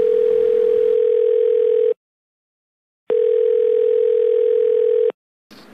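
Telephone ringback tone as heard by a caller through the line: a steady single-pitched tone held for about two seconds, a pause of about a second, then the tone again for about two seconds.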